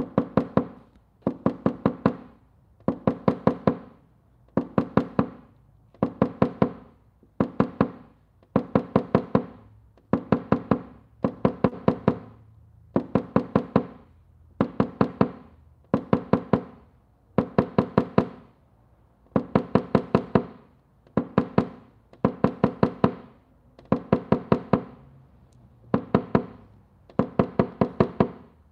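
Quick light hammer taps on a steel dent-training panel, in bursts of four to six taps about every one and a half seconds, each tap making the panel ring: tapping down the high spots left around a glue-pulled dent.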